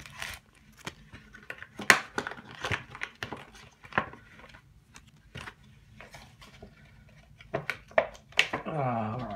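Plastic blister packaging being pried and torn open by hand: scattered crinkles and sharp cracks of the plastic, the loudest about two seconds in, with a cluster of snaps near the end. A voice is heard briefly just before the end.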